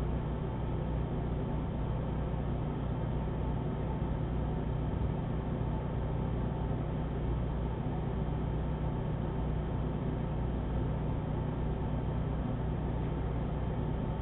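A steady low hum with an even hiss over it, unchanging throughout, with no distinct sounds of the traffic on the road.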